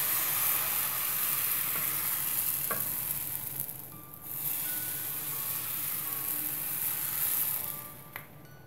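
Thin rice-flour crepe batter sizzling in a hot, lightly oiled frying pan as the pan is tilted to spread it. The sizzle dips briefly about halfway and fades near the end.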